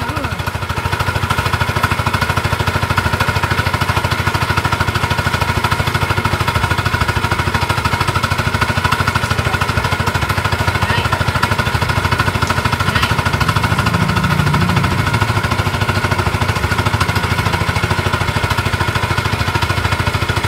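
Small engine driving a water pump, running steadily at a constant speed while it pumps a fish pond dry.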